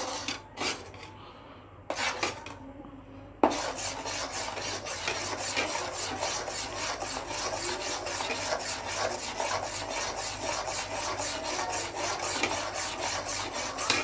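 A ladle scraping the bottom of a kadai, stirring milk with ground almond and cashew paste to keep it from sticking and catching on the bottom. A few separate scrapes, then from about three seconds in continuous fast stirring strokes.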